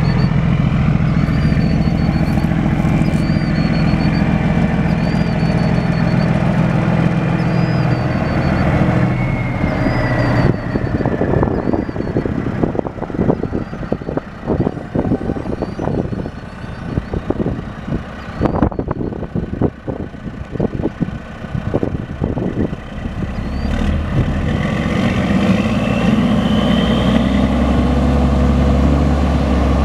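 Peterbilt 379 semi truck's diesel engine idling steadily. Through the middle the sound turns choppy and uneven, as wind buffets the microphone, and the steady idle comes back near the end.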